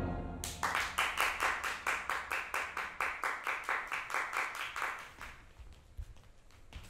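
Hand clapping, steady at about four claps a second, dying away after about five seconds. It starts as the last chord of an orchestral jazz number fades out.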